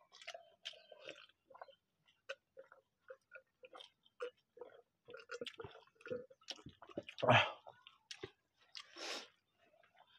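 Close-up mouth sounds of people eating rice biryani by hand: soft chewing and lip smacks in many short, irregular clicks, with one louder, longer sound about seven seconds in.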